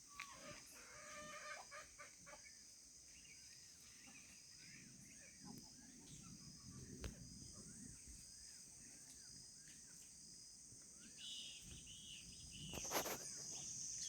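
Chickens clucking, many short soft calls over a steady high insect buzz. A short loud noise stands out near the end.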